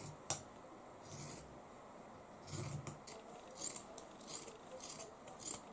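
Large dressmaking scissors cutting through folded fabric around a round template: a sharp click just after the start, then a string of snips about every half second in the second half.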